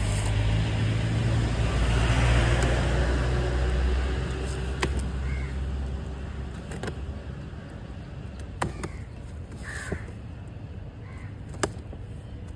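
A low vehicle rumble is loudest over the first few seconds and then fades away. Crows caw in short calls several times throughout. A few sharp clicks and scratches come from a ballpoint pen slitting the packing tape on a cardboard box.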